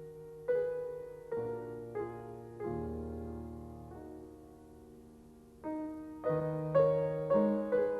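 Background music: slow, soft piano notes and chords, each struck and left to ring and fade, with a long fading pause in the middle before the notes resume.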